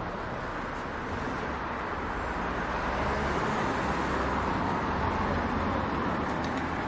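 Street traffic noise with a car driving past close by; its tyre and engine noise swells through the middle and eases near the end.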